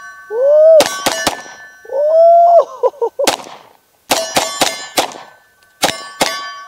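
Glock 43X 9mm pistol fired in a string of about ten shots, mostly quick pairs (double taps), with a metallic ring after the shots, typical of steel targets being hit.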